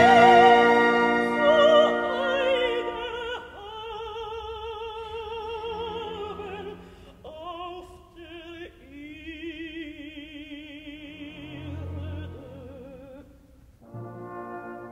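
A soprano with orchestra: her sung line, with a wide vibrato, tails off in the first two or three seconds. The orchestra then holds soft, sustained chords, and near the end brass comes in with a new chord.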